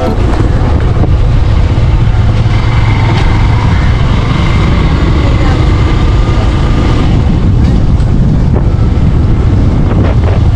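Motorcycle running at low speed, a steady rumble mixed with wind buffeting on the mounted camera's microphone.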